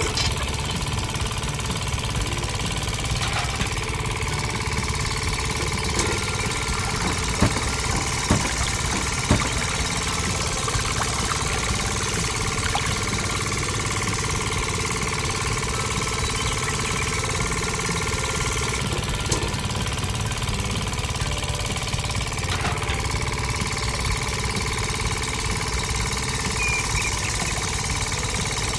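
A small motor running steadily with a rapid, engine-like knocking rattle, with a few sharp clicks about seven to nine seconds in.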